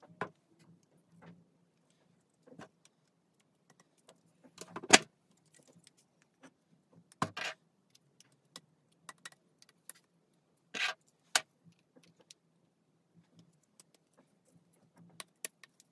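Handling noise from a 3D-printed plastic propeller drive assembly with metal bolts and an aluminium tube arm being turned over in the hands: scattered clicks and short clattering rattles, the loudest about 5, 7 and 11 seconds in.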